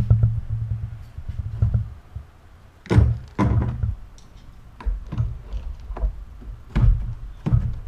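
Handling knocks and thunks, about six of them at irregular intervals, as a new flexible drive shaft is fitted into a string trimmer's shaft housing. A low rumble runs under the first two seconds and then stops.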